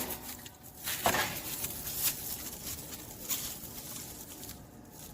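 Handling noise as a mesh onion sack full of split firewood is cinched and tied: light rustling of the plastic netting with a few soft knocks, the clearest about one and two seconds in.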